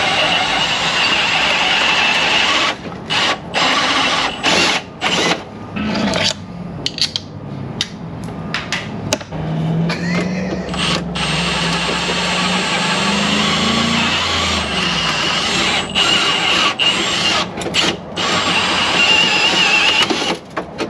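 Cordless drill drilling out the rivets that hold a car's window regulator in the door, running in long stretches broken by several short stops.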